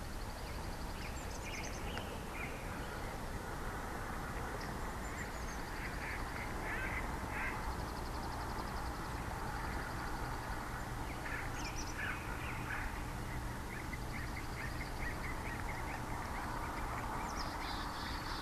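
Birds calling over a steady rushing noise. A short, rapid high trill recurs several times, and clusters of lower chirps come about a third of the way in and again about two-thirds in.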